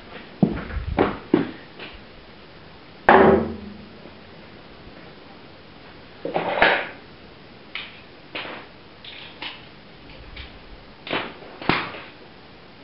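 Metal hand tools clanking and knocking in irregular strikes, about a dozen, some ringing briefly, the loudest about three seconds in: a spanner and other tools being handled while working on the engine.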